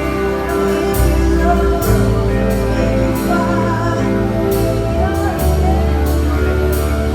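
Live church worship music with singing: a band plays held chords over a bass line that changes every second or two, with regular light cymbal-like hits.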